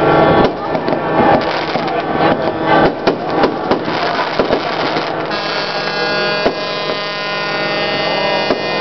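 Fireworks going off in irregular bangs and crackles, with people's voices. After about five seconds the bangs mostly stop and a steady hum of many held tones takes over.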